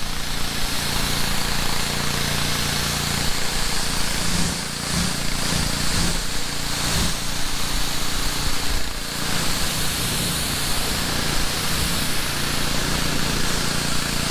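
A gas-engine pressure washer runs steadily while its high-pressure spray hisses against a car's painted hood and grille, rinsing off soap suds. The loudness dips briefly twice.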